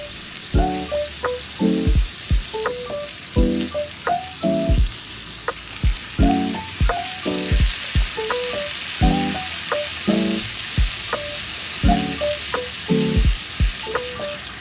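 Background music with a regular low beat and short melodic notes, over a steady high hiss of meat frying.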